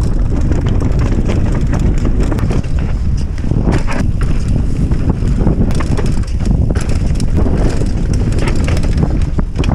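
Wind buffeting the microphone of a mountain bike's ride-along camera, with the tyres rolling over dirt and rocks and the bike rattling in a steady stream of small knocks.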